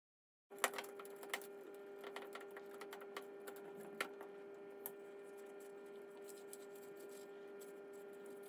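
Faint clicks and taps of hard plastic dust-bin parts being handled and wiped with a cloth, sharpest in the first few seconds, over a steady low hum. The sound cuts in abruptly about half a second in.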